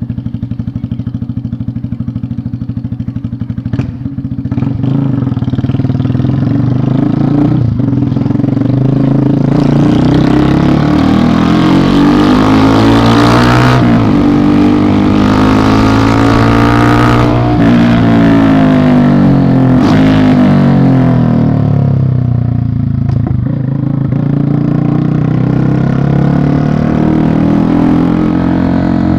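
Yamaha Fazer 250's single-cylinder engine running through a loud exhaust as the motorcycle is ridden. The note is steady at first and grows much louder about five seconds in, then the revs climb to a peak around the middle and fall back.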